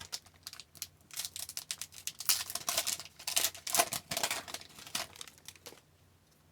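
A foil hockey-card pack wrapper being torn open and crinkled by hand: a few small clicks, then a dense run of crackling from about a second in until near the end.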